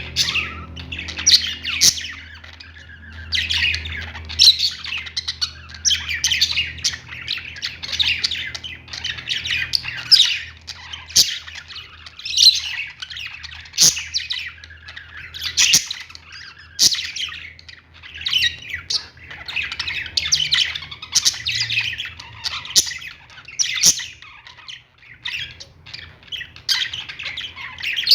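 A flock of small caged parrots chirping and squawking together in a dense, overlapping chatter of many short high calls, over a steady low hum.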